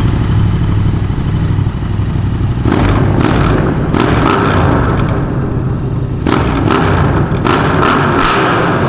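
Yamaha MT-07's parallel-twin engine running loud through an Akrapovic full-system carbon exhaust with its dB killer fitted, the note changing about three seconds in and again about six seconds in.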